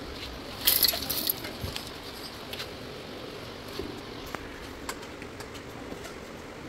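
Small stone chips tipped from a plastic bag into a steel mixer-grinder jar: a brief rattle and rustle about a second in. After it come a few scattered light clicks and knocks as the lid and jar are fitted onto the base.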